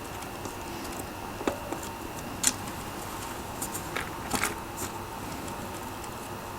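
Scattered small sharp plastic clicks and taps as a mechanical keyboard's stabilizer clips are pressed and the stabilizers lifted out of the board. The sharpest click comes about two and a half seconds in, with a quick cluster of clicks around four seconds in.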